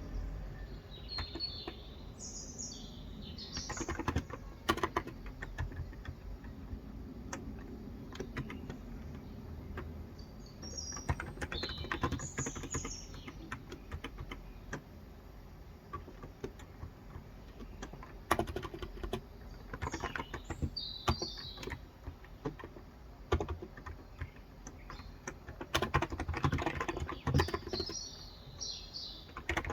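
Typing in bursts on a Cox Endeavor electrostatic-capacitive keyboard with light 35 g switches, a soft, rapid clatter of keystrokes. Birds chirp in short high phrases in the background several times.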